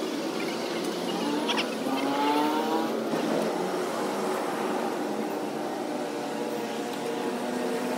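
Vehicle engine running, its pitch sliding up and down as the revs change, with a short high squeak about a second and a half in.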